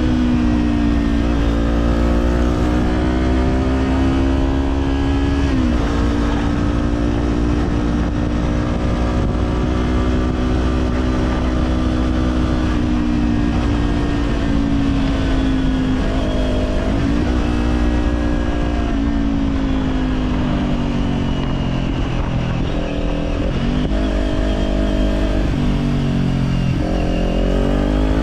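Kawasaki Z400's parallel-twin engine breathing through an Orion Katya slip-on exhaust, running continuously under way. The engine note holds fairly steady, then dips and climbs again several times with the throttle.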